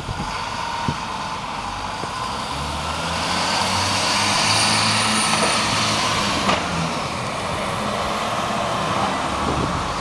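GMC Blue Bird CV200 school bus's Caterpillar 3116 six-cylinder diesel engine running as the bus drives slowly past. It grows louder as the bus comes closest, about halfway through, then eases off a little, with one sharp click near the two-thirds mark.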